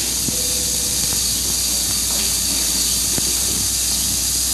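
Steady hiss of an early sound-film soundtrack, with a low hum underneath and a few faint clicks.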